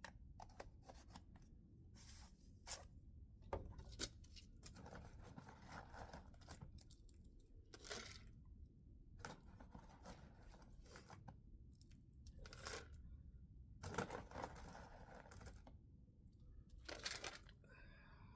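Quiet handling of feed and supplement containers: scattered rustles, scrapes and small clicks as horse feed is measured and mixed, with a few louder crinkles near the middle and end.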